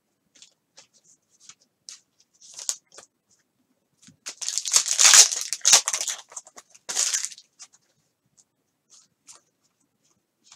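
A 2020 Panini Contenders football card pack's foil wrapper being torn open and crinkled for about three seconds in the middle. Light clicks and rustles of cards being handled come before and after.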